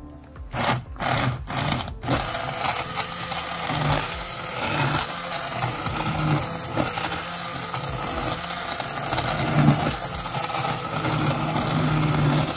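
Handheld immersion blender blending a pot of roasted red pepper soup: a few short pulses, then running steadily from about two seconds in.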